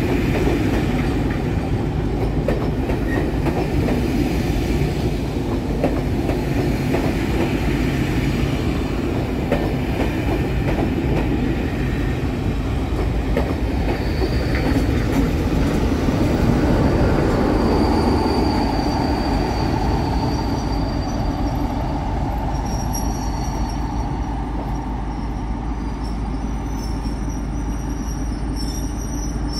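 Train of coaches rolling slowly past at a platform, wheels clicking over rail joints with a low diesel engine running underneath. Thin, high wheel squeals start about halfway through as a Class 47 diesel locomotive comes by at the rear near the end.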